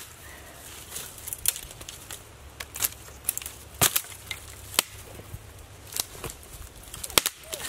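Dry sticks and brush snapping: a string of irregular sharp cracks, roughly one or two a second.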